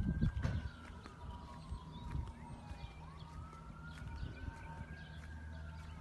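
Distant siren wailing: one tone slides slowly down, then back up and down again, each sweep taking a few seconds. Faint bird chirps sound over it.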